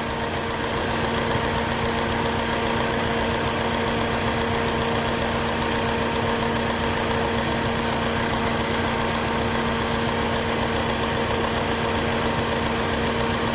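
Hyundai Sonata four-cylinder gasoline direct-injection engine idling steadily with injector 1 not working, so one cylinder is not firing.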